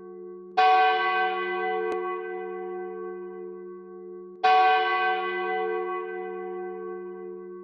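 A single church bell tolling slowly, struck twice about four seconds apart. Each stroke rings out with many tones that fade away gradually over a steady low hum.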